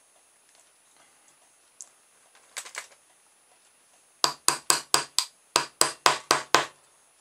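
About ten sharp knocks at roughly four a second, starting about four seconds in: a toy boat's propeller shaft, with a small plastic propeller on its end, tapped down against a wooden desktop to force the propeller onto the insulation-padded shaft until it is a tight fit. A few fainter clicks come a little earlier.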